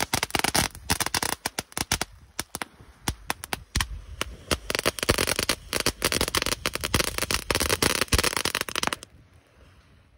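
Ground firework spraying sparks and coloured stars, a rapid run of crackling pops over a steady hiss, that cuts off suddenly about nine seconds in.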